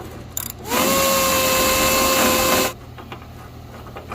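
Power tool on a Chevy tailgate hinge bolt, spinning up and then running at a steady whine for about two seconds before stopping abruptly. The bolt spins around without loosening, because the nut behind it has broken away from the truck body. A few clicks come just before the tool starts.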